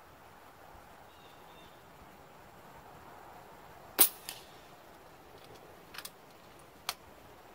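A .22 PCP air rifle (FX Crown MKII with a Swan barrel harmonic tuner) fires one shot about four seconds in: a single sharp crack with a short echo. Two lighter clicks follow about two and three seconds later as the rifle's action is worked for the next pellet.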